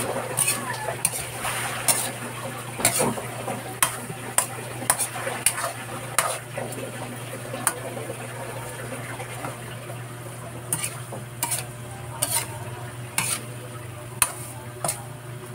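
Metal spoon scraping and clinking irregularly against a stainless steel wok as sautéed alamang (tiny salted shrimp) is stirred, with the oil sizzling. A steady low hum runs underneath.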